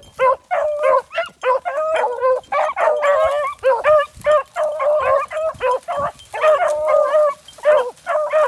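Hunting beagles baying as they run a rabbit's scent trail: a rapid, nearly unbroken string of short bays, with two dogs' voices overlapping at times.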